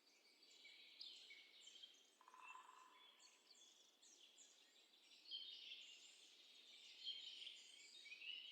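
Faint birds chirping and singing: many short high chirps and quick falling notes overlapping throughout, with one brief lower pitched call a little over two seconds in.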